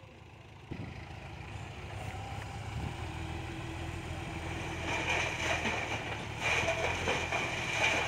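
Dump truck's diesel engine running and growing louder as the hydraulic hoist tips the loaded bed. From about five seconds in, the dumped soil pours and slides off the tailgate with a rushing hiss.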